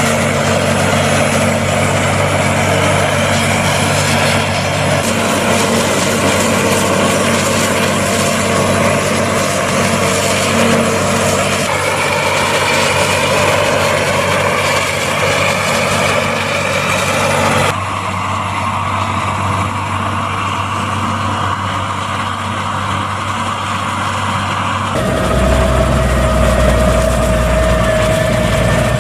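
Heavy farm machinery running steadily under load: a New Holland FX 450 self-propelled forage harvester chopping standing corn. For the last few seconds a deeper, heavier tractor engine takes over as a Case IH CVX 175 pulls a Veenhuis forage wagon across the field.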